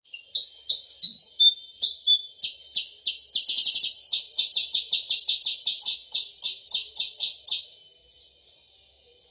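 Bird-lure recording of kutilang sutra (percang) calls: a run of short, high chirps, about three a second, packing into a quick chatter a few seconds in, and stopping a little before the end.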